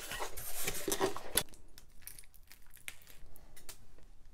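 Loose costume jewelry (beads, chains and bangles) clinking and rattling as pieces are sorted out of a pile by hand. The clatter is busiest in the first second or so, then thins to a few scattered clicks.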